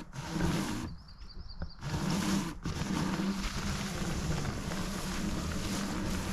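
Hoverboard hub motors driving a welded steel robot chassis, a steady low rumble that drops out for about a second near the start and then runs on.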